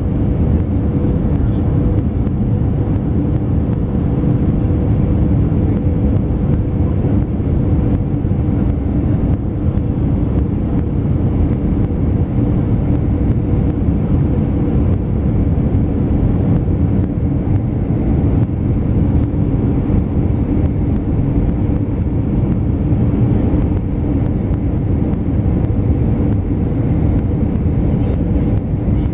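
Airbus A320 cabin noise at a window seat over the wing during the descent to land: a steady drone of engine and rushing air, with a low hum running through it.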